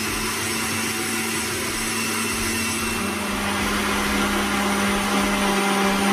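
Countertop electric blender running steadily, blending a thick okra punch mixture of okra, oats, peanuts and seeds in liquid. Its motor note steps down slightly about three seconds in.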